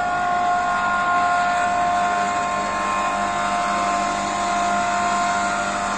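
Electric motor of a motorcycle lift running with a steady whine of a few high, unchanging tones, lowering the scooter on its platform.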